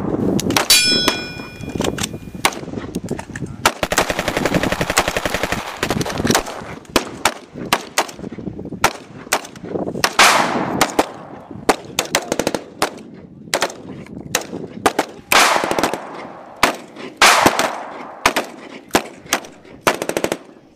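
Battle sound effects of gunfire: scattered single shots throughout, a rapid machine-gun burst about four seconds in, and several longer blasts around ten, fifteen and seventeen seconds in.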